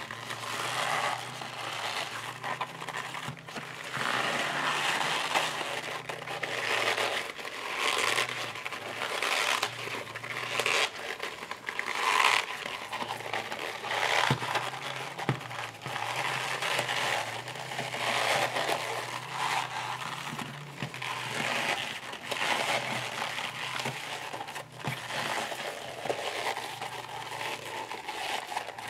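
Suede and leather of a sewn bag crumpling and rubbing as it is worked by hand and turned right side out, in irregular rustling, creasing swells.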